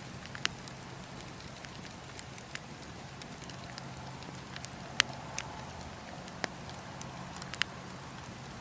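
Bonfire crackling: irregular sharp pops and snaps of burning wood, the loudest about five seconds in, over a steady low background hiss.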